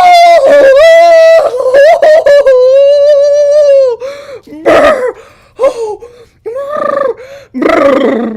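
A person's voice making high-pitched wordless exclamations. One long wavering note is held for about a second and a half near the middle, followed by a few short calls.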